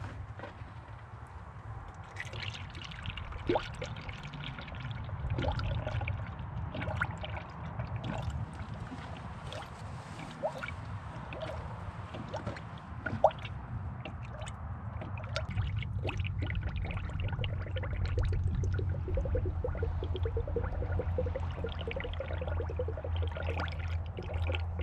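Engine coolant poured from a plastic jug into a spill-free funnel on the radiator filler neck, splashing, trickling and gurgling as it drains into the cooling system. Scattered clicks throughout, one sharp knock about 13 seconds in, and a low steady hum underneath.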